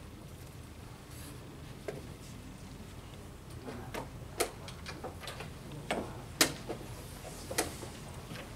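Sharp clicks and knocks of blitz chess play: wooden pieces set down on the board and chess clock buttons pressed, a faint one about two seconds in and then about a dozen from the middle on, the loudest about six and a half seconds in.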